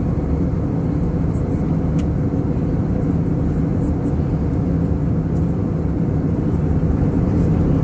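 Steady drone of an airliner's cabin in flight, engine and airflow noise with a faint low hum, unchanging throughout.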